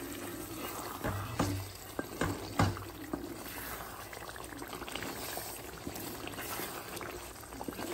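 Spatula stirring thick mutton curry gravy in a metal pot: a few knocks against the pot in the first few seconds, then soft, wet stirring sounds.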